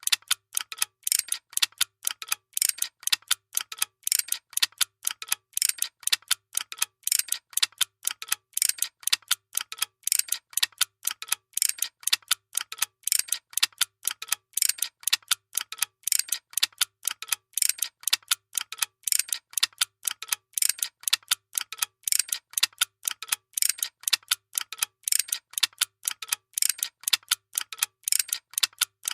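Workshop machinery ticking out a fast, steady train of sharp mechanical clicks, several a second, in an unbroken regular rhythm.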